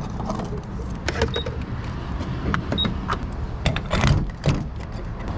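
Low steady rumble inside a moving pickup truck's cab, with scattered sharp clicks and knocks, a cluster about a second in and another around four seconds in.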